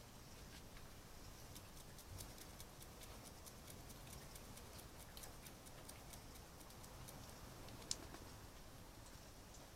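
An animal sniffing close to the microphone: many quick, faint, irregular ticks, with one sharper click about eight seconds in.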